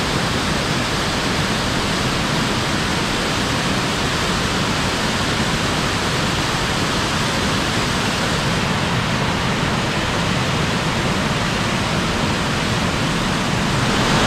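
Ryumon Falls rushing over rock, heard close from the top of the waterfall: a steady, unbroken roar of falling water.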